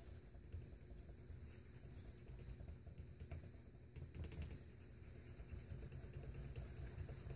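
Pinstriping brush stirring and dabbing in a small tin of yellow enamel, bristles and handle scraping on the tin: faint, rapid, scratchy ticking, a little busier about four seconds in.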